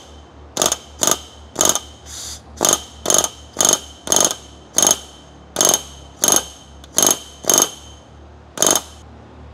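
Pneumatic rivet gun hammering solid rivets into an aircraft sheet-metal patch against a bucking bar, in short bursts of about two or three a second, each with a ringing metallic tone from the sheet. The bursts stop near the end.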